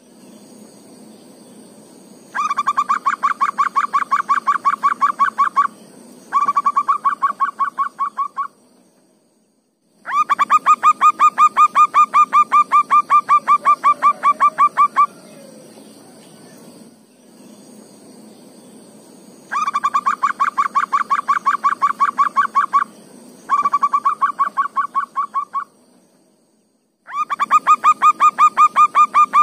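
Zebra dove (perkutut) calling in loud runs of rapid, evenly spaced notes, about nine a second, in bouts of two to five seconds with short pauses between them. A faint steady high-pitched hum runs underneath.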